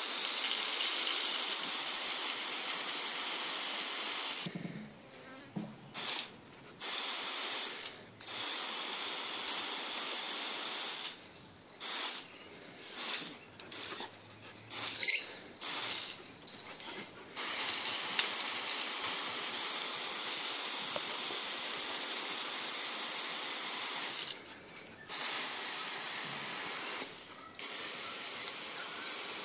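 Garden hose spray hissing onto a lawn, cutting out and coming back several times. A few short high squeaks stand out, the loudest about halfway through and again about three-quarters through.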